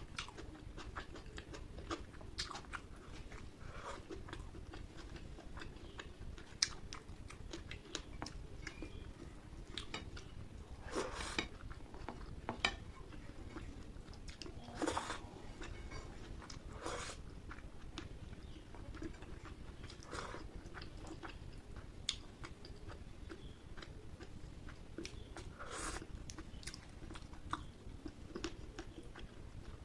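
Close-up chewing of curry and rice: wet mouth sounds with scattered soft smacks and clicks, a few louder ones spread through.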